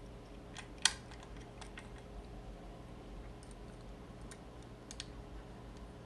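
Scattered light metallic clicks and taps of lock-picking tools working in a vintage four-lever lever padlock, with one sharp click about a second in.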